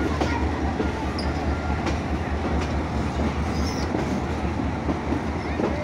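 Passenger train rolling along the track, heard from beside a coach: a steady rumble of wheels on rail with irregular sharp clicks as the wheels cross rail joints and points, and a couple of faint brief squeals.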